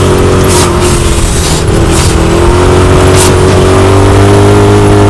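Side-by-side UTV engine running loud and steady, heard from inside the open cab while driving along a dirt trail. Its pitch dips a little about two seconds in and then climbs back. A few short bursts of hiss come through over it.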